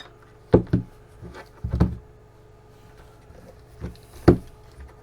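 Knocks and clatters from a small gearbox being handled and set down on a workbench: two knocks about half a second in, a short clatter near two seconds, and a sharper knock after four seconds.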